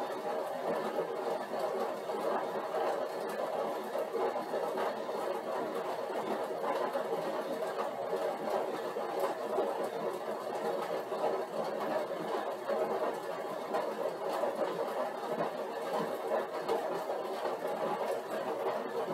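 Upright stationary exercise bike whirring steadily as it is pedalled against a 150-watt load.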